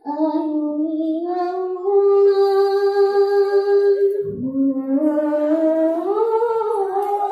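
A group of girls singing a sholawat, an Islamic devotional song, in unison into handheld microphones, holding long drawn-out notes; about four seconds in the melody dips and then climbs again.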